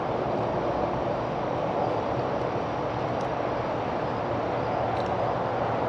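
Steady rushing outdoor background noise with no clear pitch, with two faint short clicks about three and five seconds in.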